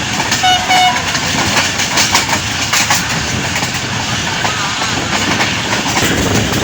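Passenger train running along the track: a steady rumble with wheels clacking over rail joints. About half a second in, a short two-part pitched tone sounds.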